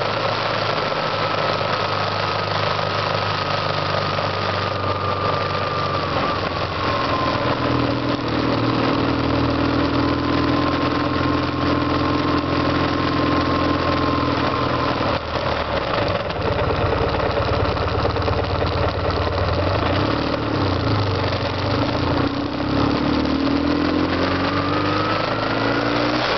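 BMW R1150GS's air/oil-cooled boxer twin running under way, heard from the bike over a steady rush of wind and wet-road tyre noise. The engine note sinks slightly in the first several seconds, holds, then rises again near the end as the bike speeds up.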